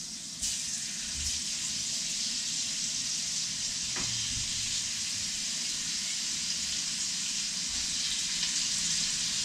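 Diced marinated beef going into hot oil in a frying pan: the sizzle starts suddenly about half a second in and then runs steadily as the meat fries. A light tap about four seconds in.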